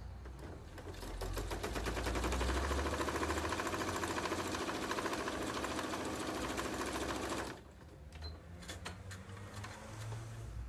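Domestic electric sewing machine stitching a seam through folded fabric and batting. It picks up speed about a second in, runs at a fast, even rate of needle strokes, and stops abruptly about seven and a half seconds in, followed by a few light clicks as the fabric is handled.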